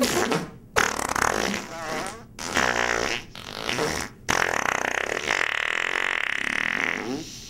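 Fart noises blown with the mouth against a hand pressed to the face: a string of short spluttering raspberries, the last one drawn out for about two seconds.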